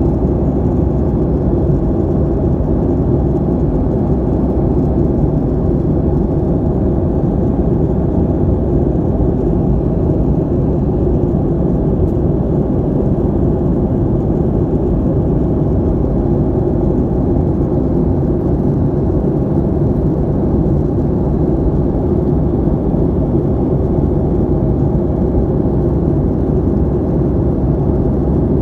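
Airplane noise: a steady, loud, deep rumble that holds unchanged throughout.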